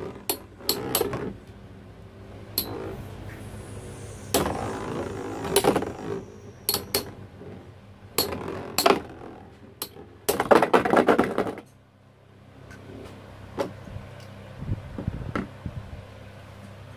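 Spinning tops knocking and clattering against each other and a battle arena: a string of sharp clicks and knocks with short bursts of rattling, the longest about ten seconds in, over a faint steady hum.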